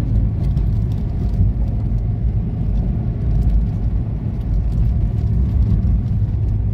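Car driving, heard from inside the cabin: a steady low rumble of engine and tyre road noise.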